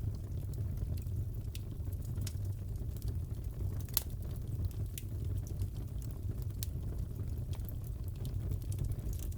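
Wood fire crackling in a fireplace: a steady low rush of flame with irregular sharp pops and snaps, the loudest about four seconds in.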